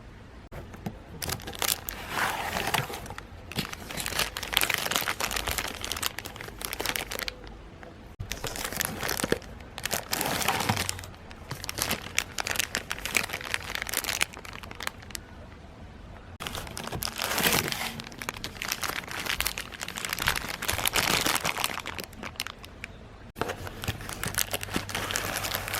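Plastic packaging being handled and crinkled in bursts, with small crackles and tearing as a small boxed figure set is unwrapped.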